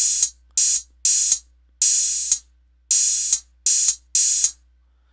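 Open hi-hat sample triggered from a drum-machine pad seven times, each ring stopped dead by a closed hi-hat hit. Both samples sit in the same choke group, so the closed hat cuts the open one off.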